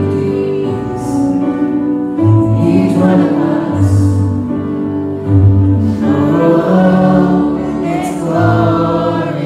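Live band music with singing: long held sung notes over steady bass notes.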